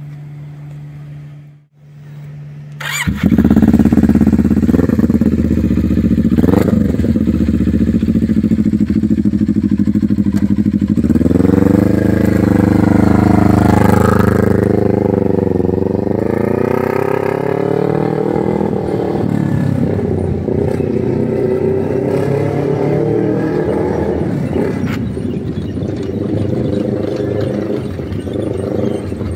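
CFMOTO NK400's parallel-twin engine starting up about three seconds in and running, then revved up and down a few times in the middle before it settles back to a steady idle.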